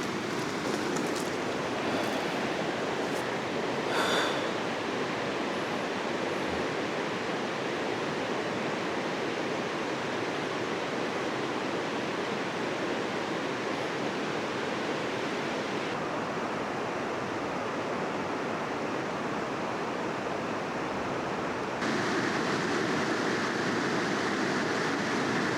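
Mountain stream flowing, a steady rush of water. Its level and tone shift abruptly twice, and a few faint clicks and one short sharp sound come near the start.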